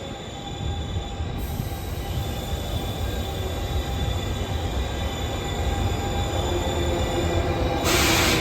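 Sleeper-train coaches rolling slowly over the rails, with a low rumble that grows louder and thin, steady wheel-squeal tones above it. Near the end a loud hiss sets in suddenly.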